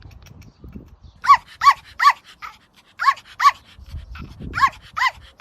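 A dog yapping: seven short, high-pitched yaps in three quick bursts, three, then two, then two.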